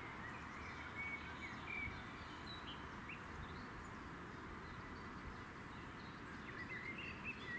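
Faint birds chirping over a steady outdoor background hiss, the chirps coming in a cluster about a second in and again near the end.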